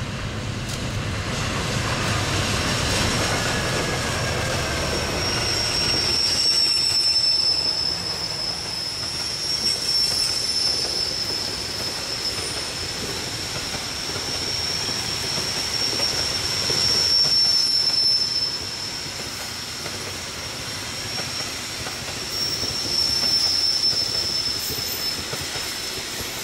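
A diesel-hauled passenger train passes on a curve. The locomotive's engine rumble is strongest in the first few seconds, then the coaches roll by with the wheels squealing in one steady high tone on the curved track until near the end.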